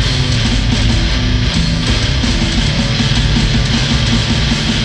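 Instrumental heavy metal jam played live on electric guitar, bass guitar and drum kit, loud and steady, with fast repeated low notes.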